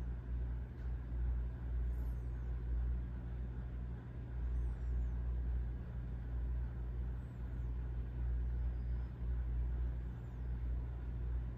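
Steady low rumble with a faint hum, and faint high chirps repeating about every two and a half seconds.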